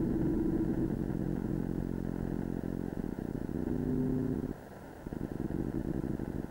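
Live electronic noise music from circuit-bent toys: a dense, low buzzing drone with a few held tones over it. It drops sharply in level about four and a half seconds in and goes on as a quieter fluttering rattle.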